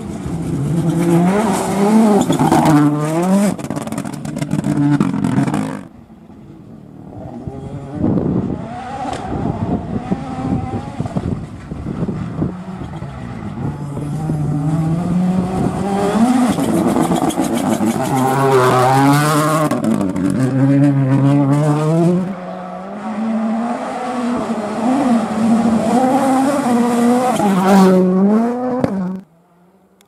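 Ford Puma Rally1 rally car's 1.6-litre turbocharged four-cylinder engine, driven hard on gravel. The revs climb and drop again and again through gear changes, over a noisy hiss. It dips briefly a few seconds in, and the sound cuts off suddenly near the end.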